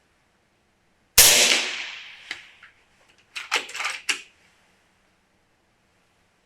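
FX Impact M3 .30 calibre PCP air rifle firing one shot, its sharp report trailing off over about a second. A couple of seconds later comes a quick series of mechanical clicks as the action is cycled for the next pellet.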